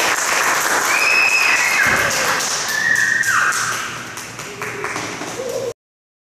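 Audience applauding at the end of a talk, with a couple of short whistles in the middle; the sound cuts off suddenly near the end.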